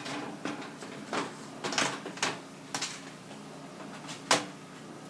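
Sheet-metal elbow being worked onto the freshly crimped end of an 8-inch round duct: a series of short metallic clicks and scrapes, the loudest about four seconds in.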